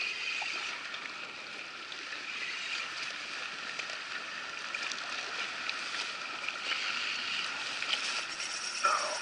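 Choppy water lapping and sloshing against an inflatable kayak's hull in a steady wash. There is a brief falling squeak near the end.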